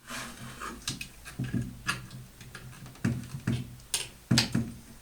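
A string of sharp metal clicks and light knocks, irregular at about two a second, from a spanner working the collet nut of an Einhell TH-RO 1100 E router to tighten the newly fitted cutter.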